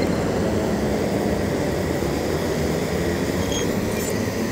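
Rotax Mini Max two-stroke kart engines running at racing speed, a steady mechanical drone.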